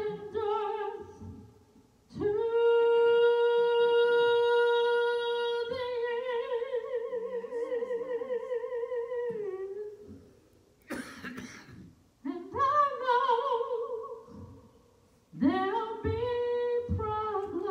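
A woman singing solo and unaccompanied into a microphone: long held notes, some with a wide, slow vibrato, in three phrases broken by pauses. A short burst of noise comes a little past the middle.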